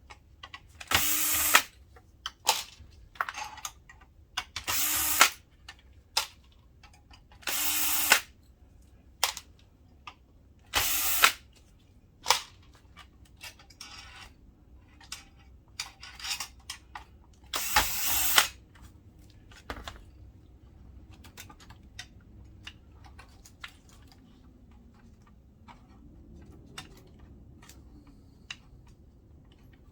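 Electric screwdriver whirring in several short bursts, about half a second each, while screws are taken out during disassembly. In the last ten seconds there are only small clicks and taps of parts being handled.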